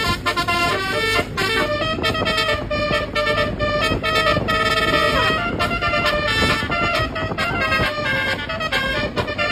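Twelve-note Basuri 'telolet' bus horn playing a tune: a run of sustained horn notes stepping from pitch to pitch, over a low background rumble.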